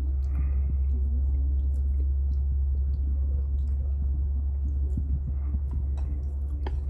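Closed-mouth chewing of a mouthful of chewy cold bibimmyeon noodles, with small wet clicks, over a steady low hum. A sharper click comes near the end.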